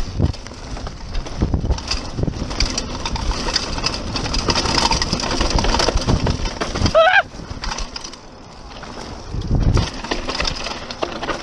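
Mountain bike rolling fast down a dirt trail: tyres crunching over dirt and the bike rattling over bumps, with wind on the microphone. About seven seconds in comes a brief high-pitched rising cry, then a quieter stretch, then a heavy thump near the end.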